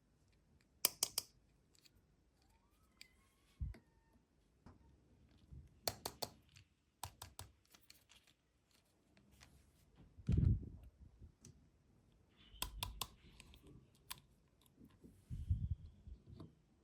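Plastic toy playset pieces being handled and fitted together: clusters of sharp plastic clicks and taps, a few dull thumps as parts are set down, and a faint squeak or two.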